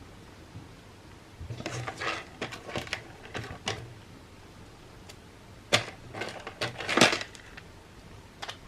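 Irregular clicks and small rattles of metal parts being handled on a linear-rail carriage, in two bursts with a quiet gap between them.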